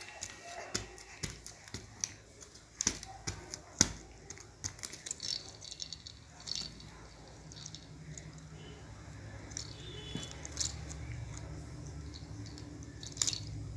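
Sharp clicks and taps of a baby handling small plastic things, thickest in the first half. A low steady hum comes in about halfway and grows toward the end.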